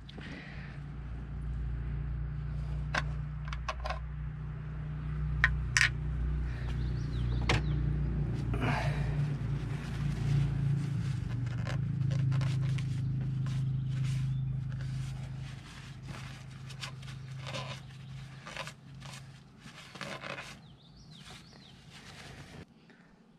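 Hands handling a plastic oil funnel and the engine's oil filler, making scattered light clicks, knocks and scrapes. A steady low hum lies under it and fades out about two-thirds of the way through.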